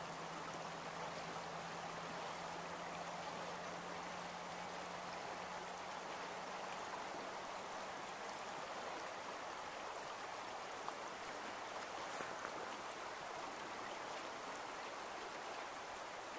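Steady rush of a shallow, fast-flowing river running over its rippled bed.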